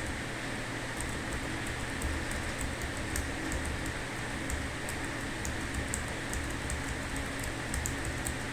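Computer keyboard typing: light, irregular key clicks, a few a second, over a steady background hiss and low hum.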